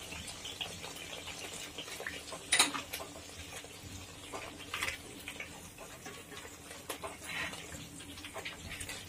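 Silicone spatula stirring thick masala frying in oil in a metal kadai: soft scraping with a faint sizzle and scattered light clicks, the sharpest about two and a half seconds in.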